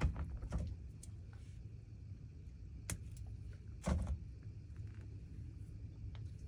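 Steady low rumble of wind on the microphone, with a few short knocks and clicks of fly-tying tools and materials being handled. The loudest knocks come at the start and about four seconds in.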